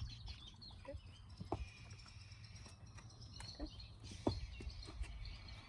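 Faint bird chirping in the background, with a few scattered soft knocks.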